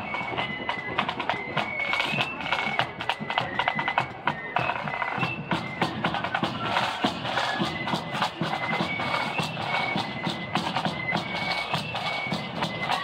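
Marching flute band playing a tune: a high flute melody over rattling snare drums and a steady bass drum beat.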